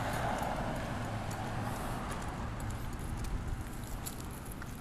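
A vehicle passing on the street, its noise fading over the first couple of seconds, with light footsteps and small clinks of someone walking on a sidewalk.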